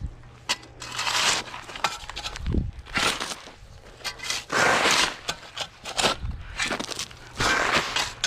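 Shovel scooping into loose gravel and tossing it, a crunching scrape repeated about five times, roughly every one and a half seconds.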